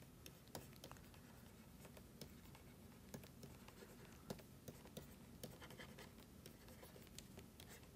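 Faint scratching and light irregular taps of a stylus writing on a tablet, over a low steady hum.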